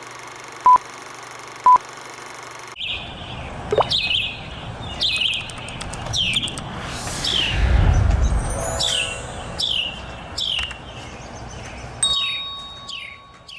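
Two short electronic beeps about a second apart, then a bird calling over and over with short chirps that sweep downward in pitch. A low rush of noise swells and fades in the middle.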